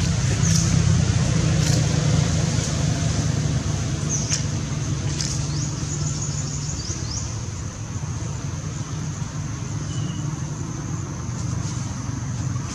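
Steady low rumble of outdoor background noise, typical of road traffic, under a continuous high hiss. Several short, high, falling chirps come about half a second in and again between about four and seven seconds.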